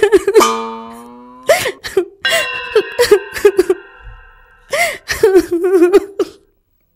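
A woman crying in short sobbing bursts, twice, over held music notes that fade out; it goes quiet just before the end.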